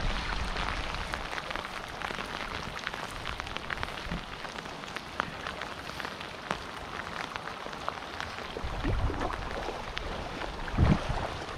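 Steady rain falling on a river's surface, a dense hiss of many small drop ticks. A brief low thump near the end.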